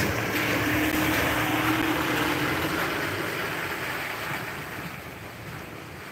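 A car passing on a wet road: tyres hissing on the wet surface over a steady engine hum, loudest in the first few seconds and then fading away, leaving the softer hiss of rain.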